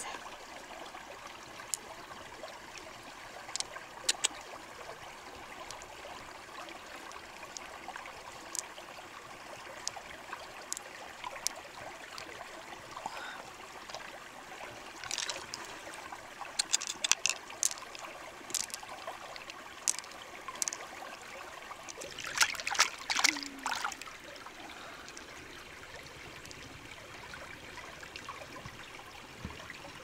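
A shallow stream running steadily over rocks, with scattered small clicks as pearls are picked from an opened mussel and knock together in the hand; a quick run of louder clicks comes about three quarters of the way through.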